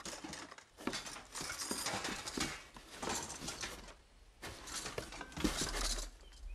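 Cartoon sound effect of a cardboard box being shaken, with something rattling and knocking about inside it in several bursts of clatter.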